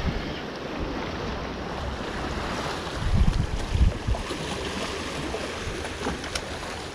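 Sea surf washing against the rocks of a breakwater, with wind buffeting the microphone in low gusts about three to four seconds in.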